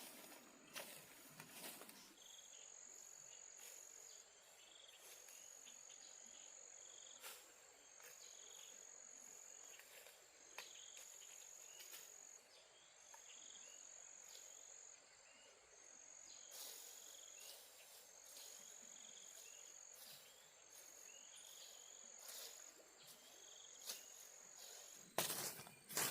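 Faint insect calling in a steady repeating pattern: a high-pitched call about a second and a half long, roughly once every two seconds. Scattered faint clicks, with a brief louder noise near the end.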